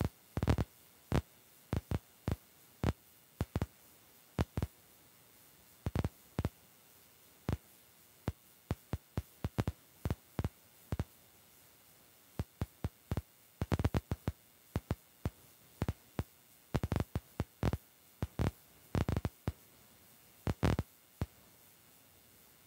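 Heavy rain striking the car's windshield and roof, heard from inside the cabin as scattered sharp knocks at irregular intervals, some in quick clusters, with little sound between them.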